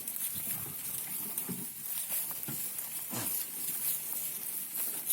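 Male Sirohi goats feeding in a pen: scattered short low sounds and a few knocks from the animals.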